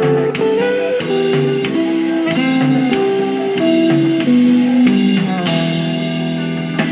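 Guitar-led song with drums, an MP3 played back by an Amiga 4000 through a Prelude Zorro II sound card. The guitar plays a melody of held notes that change every half second or so.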